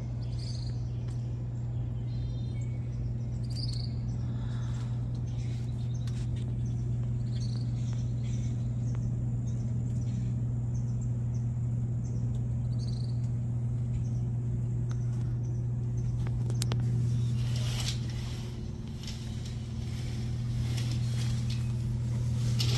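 A steady low hum runs throughout, with a few short high bird-like chirps in the first half. Louder rustling noise comes in for a few seconds near the end.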